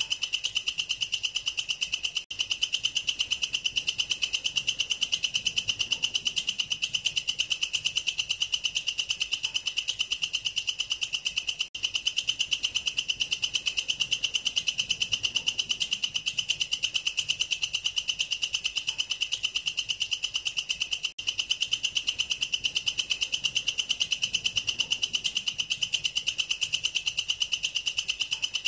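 Katydid (bush cricket, 'belalang kerek') stridulating: a loud, steady, high-pitched trill of very rapid pulses, broken briefly three times.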